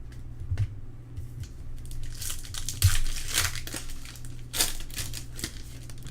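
Foil trading-card pack wrapper crinkling and tearing as it is ripped open and handled, with a couple of light taps, most of it in a busy stretch from about two seconds in.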